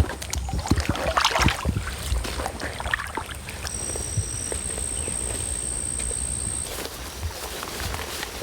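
Rustling, crunching and clicking of people moving off on foot and handling gear, busiest in the first three seconds. After that comes a steadier outdoor noise with a thin, high steady whine for about three seconds in the middle.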